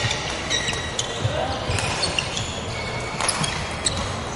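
Badminton rally: a few sharp hits of rackets on the shuttlecock, short squeaks of court shoes on the wooden floor, and voices chattering in the background.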